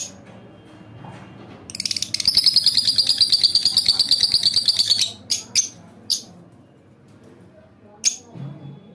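Lovebird chirping: a sharp single chirp, then about two seconds in a fast, rattling chatter that lasts about three seconds, followed by a few more sharp chirps.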